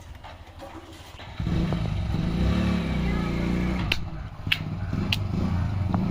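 An engine running, coming in suddenly about a second and a half in and holding steady, with a few sharp clicks near the end.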